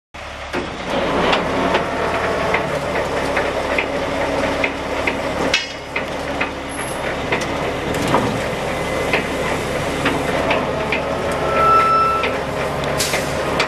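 The truck's Caterpillar C13 diesel engine running at a steady idle, with irregular clicks and knocks over it and a brief high tone near the end.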